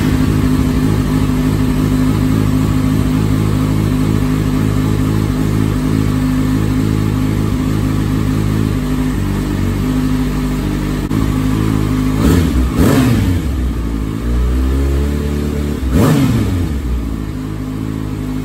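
2019 Kawasaki ZX-6R's 636 cc inline-four idling just after starting, warming up. The throttle is blipped twice in quick succession about twelve seconds in and once more around sixteen seconds in, the revs rising and falling back to idle each time.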